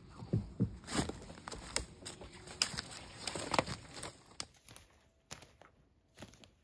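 Footsteps crunching and rustling through dry fallen leaves on rocky forest ground, close and uneven. About four and a half seconds in they drop away to a few faint, sparse steps.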